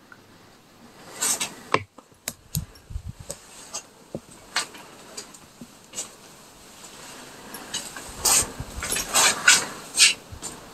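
Footsteps and rubbing, scraping noises on a wooden floor, with scattered sharp clicks, growing busier in the last few seconds.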